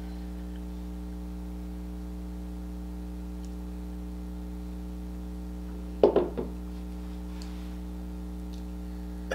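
Steady low electrical hum, with a short knock about six seconds in as a glass mason-jar mug is set down on a wooden table.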